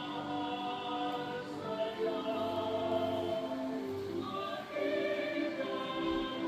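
A choir singing sacred music in long, held notes, several voices together, the chords changing every second or so.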